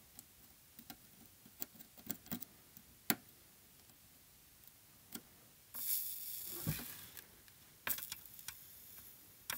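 Faint, scattered clicks and taps of metal tool tips against a circuit board, with a short stretch of soft hiss about six seconds in.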